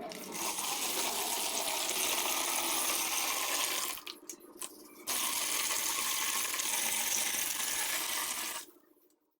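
Gritty sand-cement chunks crumbling and breaking apart in water, a steady hissing crumble in two long stretches with a short break near the middle.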